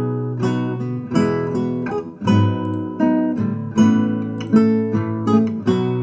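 Recorded acoustic guitar strumming chords, about one strum every 0.7 seconds. The track is played back through an equalizer that boosts the high frequencies around 12 kHz to add brightness.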